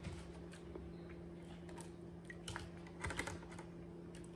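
Faint, scattered light clicks and crinkles from a plastic bag of raspberries being tipped into a pot, busiest about three seconds in.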